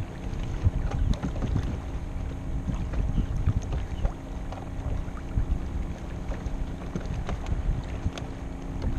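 Wind buffeting the microphone, heard as an uneven low rumble, with choppy water lapping against a small kayak and a few light knocks.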